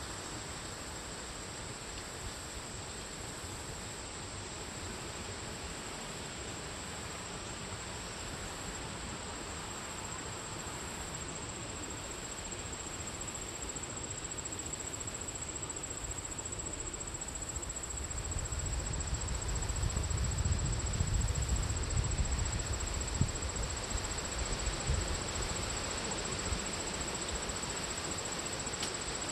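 Steady high-pitched chorus of insects trilling without a break over a faint outdoor hiss. A low rumble swells about two-thirds of the way through and eases off again.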